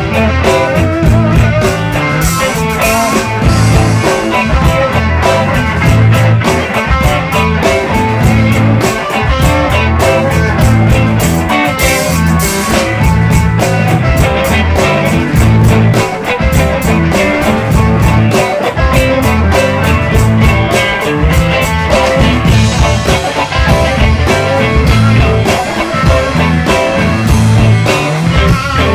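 Electric blues band playing: guitar over bass and drums with a steady beat.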